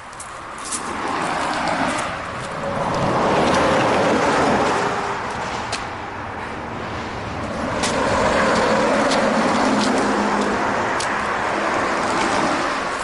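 Road traffic passing: two vehicles go by one after the other, each rising and fading away, with a few faint ticks between them.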